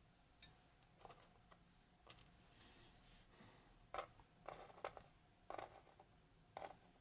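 Faint, scattered small clicks and light metallic taps, several of them bunched about four to five seconds in: small parts of a Kaba Gemini S dimple lock being handled as it is taken apart pin by pin.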